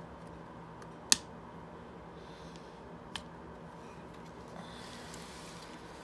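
Plastic snap-fit clip of a C5 Corvette ignition switch housing snapping loose as it is pried with a small screwdriver: one sharp snap about a second in and a fainter click about two seconds later, with light scraping of the screwdriver on the plastic.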